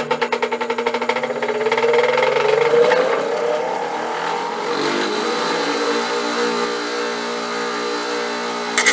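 Sunex 500A2 8-inch bench grinder's motor coming up to speed after being switched on. A rhythmic pulsing quickens and a whine rises in pitch over the first three seconds, then it settles into a steady running hum. The pulsing vibration is the sign of the out-of-round coarse wheel and loose motor base that the owner blames for the grinder getting noisier.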